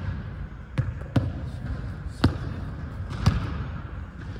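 Basketball bouncing on a hardwood gym court: about four separate thuds at uneven intervals.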